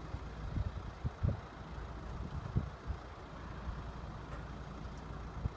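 Wind buffeting the microphone outdoors: an uneven low rumble with irregular gusty thumps.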